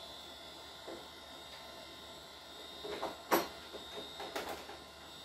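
Faint steady electrical hum and high whine from powered computer equipment, with a few sharp clicks of handling: the loudest just after three seconds in, and a small cluster around four seconds.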